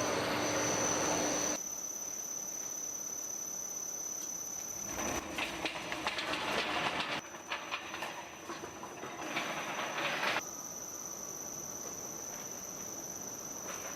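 Komman Monster Forceline 2700 automatic carpet washing machine running, with a steady high whine. Stretches of loud rushing and clattering from the washing cycle break in and stop abruptly three times.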